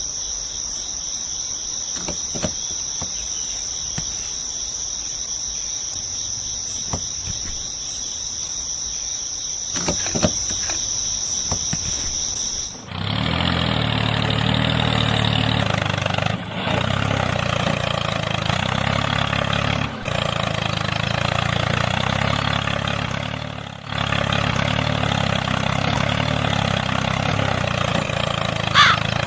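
Steady cricket-like insect chirring, which stops abruptly about thirteen seconds in. A tractor-type engine then runs steadily in its place, broken by a few brief dropouts.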